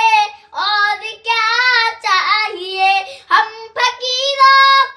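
A young boy singing a naat, an Islamic devotional song, solo and without instruments. He sings several long phrases with bending, wavering pitch, broken by short breaths.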